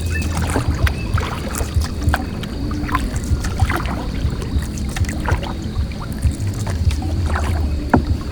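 Small boat on the river, with water splashing and frequent short knocks against the hull under a steady low hum. Background music plays along with it.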